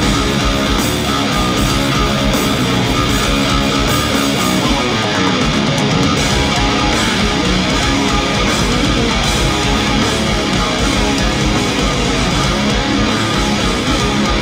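Live instrumental progressive metal played loud and without a break by a trio: electric guitar over bass guitar and drums, heard through the venue PA from the audience.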